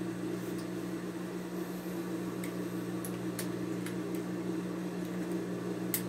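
A steady low mechanical hum, with a few light clicks and taps scattered through it.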